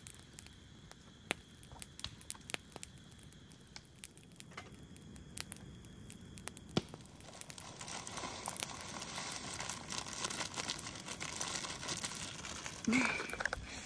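A plastic food packet crinkling and rustling as it is torn open and its dry contents are poured into a camping pot, building up over the second half after scattered light clicks.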